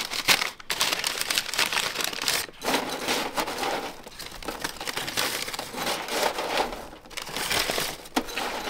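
Metal tongs scooping and tossing french fries in a stainless steel tray: a dense, irregular crisp rustle with many small clicks of metal on metal.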